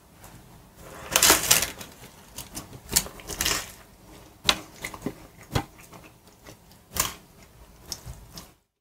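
Close-up eating sounds from a bread-bun cheeseburger: a crackly bite about a second in, then irregular crunches and wet clicks of chewing, spaced about a second apart. Everything stops abruptly just before the end.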